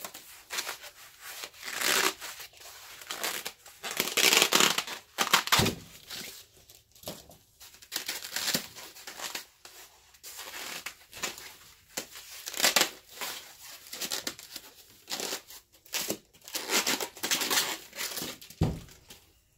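White foam packing blocks being pulled and worked off the wheels of a motorized golf push-cart unit: irregular rustling, crinkling and scraping of foam and plastic. There are two dull thumps, one about six seconds in and one near the end.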